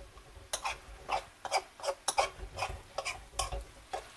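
A metal spoon scraping and clinking against a steel karahi while stirring minced beef and chopped tomatoes as they fry, with irregular strokes two or three a second.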